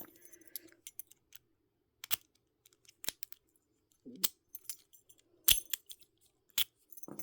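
Sharp metallic clicks and clinks, one every second or so, as an ABUS 72/40 padlock and lock-picking tools are handled.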